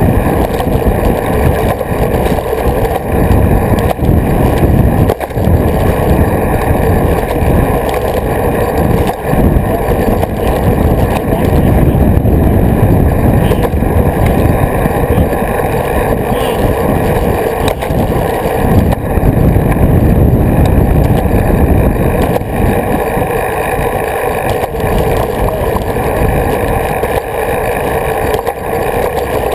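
Loud, steady wind rush and road rumble on an action camera mounted on a moving road bicycle, with a steady hum running through it.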